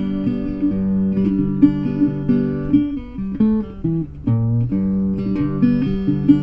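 Acoustic guitar music.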